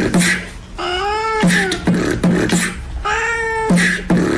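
A rhythmic music track with a beat built on repeated cat meows: two long meows, each rising then falling in pitch, about two seconds apart, between short percussive clicks.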